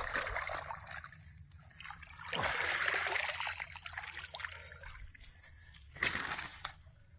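Water sloshing and splashing, loudest about halfway through, with another short splash near the end.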